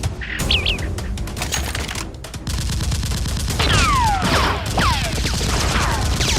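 Rapid volleys of gunfire sound effects, shot on shot, thickening and getting louder about two and a half seconds in, with high falling whistles laid over the shots.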